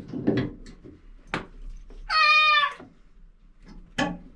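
A cat meows once, a drawn-out call of about two-thirds of a second, with two sharp metallic clinks of tools on fittings, one before and one after it.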